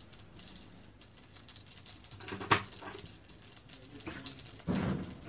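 Cooking oil pouring in a thin stream into a stainless steel grill pan, a faint trickle. A sharp click comes about two and a half seconds in, and a louder knock near the end.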